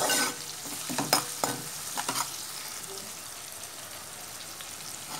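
Sliced onions and green chillies sizzling in hot oil in a metal pan. A steel ladle scrapes and clinks against the pan several times in the first two seconds or so, and after that there is a steady frying hiss.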